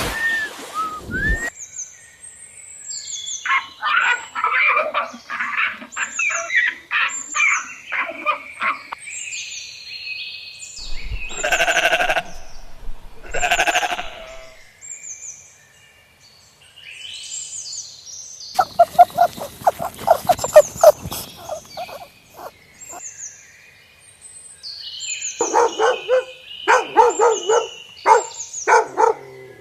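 Farm livestock bleating in several bouts: two long drawn-out bleats in the middle, and quavering, pulsing bleats in the other bouts. Small birds chirp throughout.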